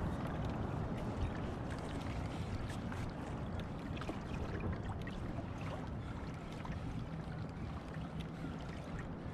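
Water lapping and gurgling against a plastic fishing kayak's hull, with scattered small ticks over a steady low rumble.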